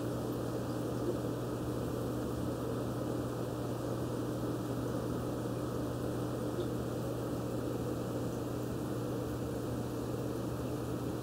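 Steady hum of an aquarium pump, a constant low tone under an even hiss with no change.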